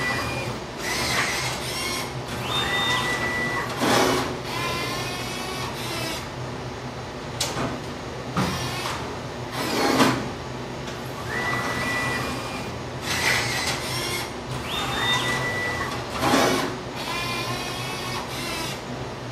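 Prototype vending machine's robotic picking mechanism running through two retrieval cycles: motor whines that rise in pitch and hold steady while the mechanism travels, with a few sharp knocks as bottles are taken from the shelf, over a steady low machine hum.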